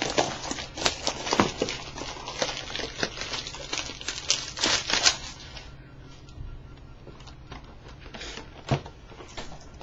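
Trading card box packaging being opened by hand: crinkling and tearing of wrapper and cardboard. It is a dense run of crackles for about the first five seconds, then sparser rustles with a few sharper rips near the end.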